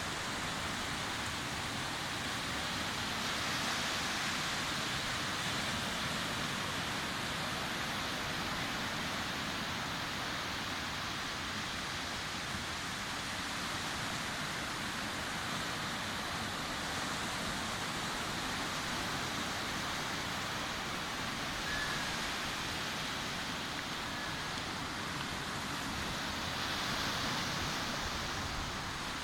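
Steady ocean surf: waves breaking and washing on a beach, swelling slightly a few seconds in and again near the end.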